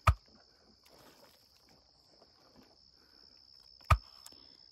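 Crickets chirring steadily, with faint footsteps and rustling underneath. Two sharp knocks, one right at the start and one near the end, are the loudest sounds.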